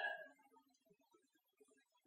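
Near silence: a pause in a man's speech, with the end of his last word fading out at the very start.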